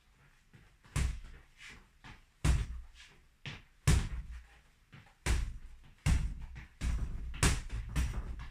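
Boxing punches landing with sharp smacks, single blows about every second or so, then a quicker run of hits in the last two seconds.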